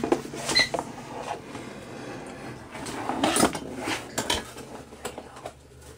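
Cardboard toy box and small plastic playset pieces being handled: scattered clicks, taps and rustles, loudest about three seconds in.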